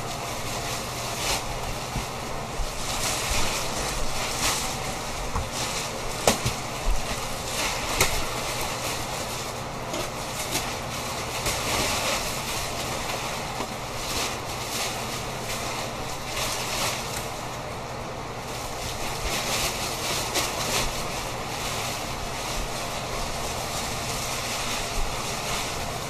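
Plastic wrapping being handled and pulled off a memory foam mattress, crinkling and rustling steadily, with sharper crackles here and there.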